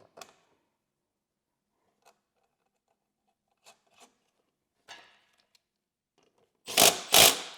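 Faint clicks and taps of a screw and nut being handled and fitted to a plastic floorboard panel, then two loud, short scraping noises close together near the end.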